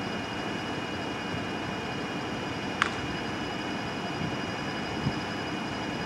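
Distant Norfolk Southern diesel locomotives running as they move slowly along the track: a steady low rumble and hiss. A single short, sharp click sounds about three seconds in.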